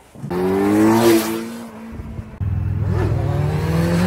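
Kawasaki Z900 motorcycle's inline-four engine accelerating, rising in pitch, easing off briefly about two seconds in, then climbing again. It starts and cuts off abruptly.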